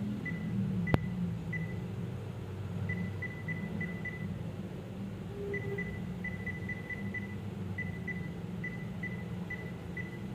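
Short electronic beeps at one fixed high pitch, coming in irregular groups, over a low steady hum, with a single sharp click about a second in.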